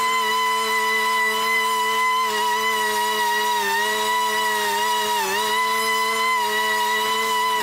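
Riding mower engine running at full throttle with the blades cutting grass, a steady pitched hum that dips briefly in pitch twice.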